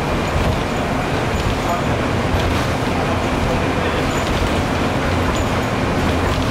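Steady engine and road rumble of a city transit bus, heard from inside the passenger cabin.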